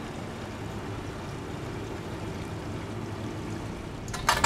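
Steady low rumble with a water-like hiss, then a few sharp clicks or knocks near the end.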